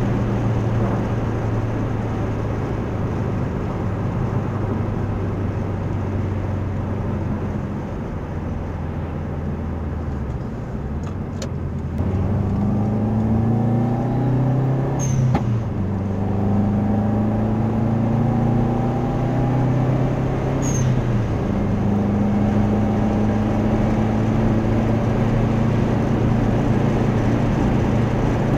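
Subaru Impreza WRX's turbocharged flat-four heard from the cabin, first cruising with a steady drone, then pulling up through the gears with rising pitch. A short, sharp blow-off valve release comes at each of two upshifts, about halfway and about three-quarters through, before the engine settles back to a steady cruise.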